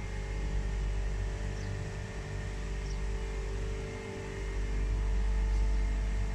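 Two-chamber metal etching and washing machine running: a steady machine hum with a low drone and an even hiss above it.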